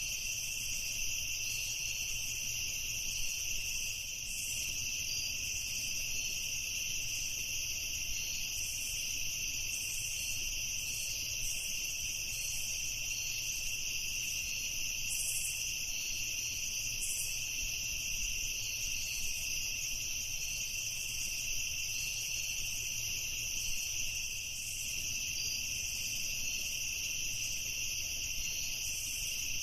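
Crickets chirping in a steady, unbroken chorus, high-pitched and continuous.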